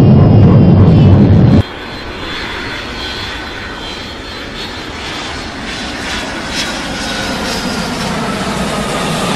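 A loud low rumble cuts off abruptly about a second and a half in. It gives way to a twin-engine jet airliner taking off: steady jet engine noise with a high whine that slowly falls in pitch.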